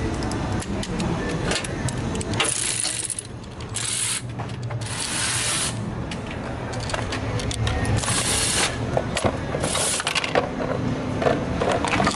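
Hand socket ratchet clicking as bolts are worked loose during an engine removal, with several short hissing bursts of up to a second each.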